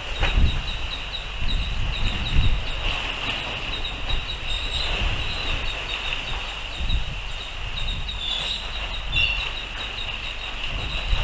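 Wind buffeting an outdoor microphone in gusts, with a steady high-pitched hiss and faint rapid chirping running above it.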